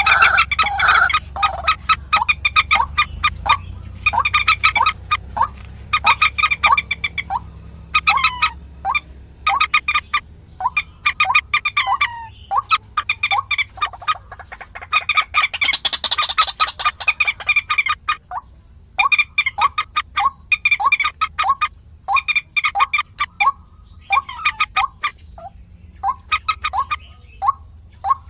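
Common moorhen calls played as a bird-lure recording: repeated short bursts of rapid clucking notes, a burst every second or two, with a faint steady low hum underneath.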